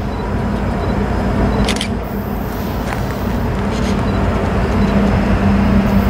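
Diesel locomotives of an approaching freight train: a steady low engine drone that grows louder toward the end, over a broad rumble.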